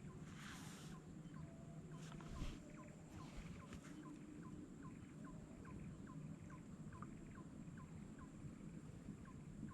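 Faint animal call: a steady run of short, downward-dropping chirps, about three a second. A few brief rustles come in the first four seconds, with a knock at about two and a half seconds.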